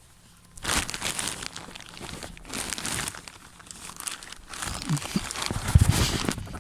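Rustling and crinkling handling noise as someone gets down under the front of a van with a camera, with a heavier low thump near the end.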